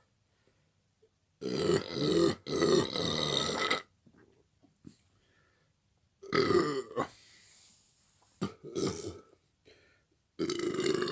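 Loud burps from men who have gulped fizzy soda: two long ones back to back about a second and a half in, then three shorter ones later.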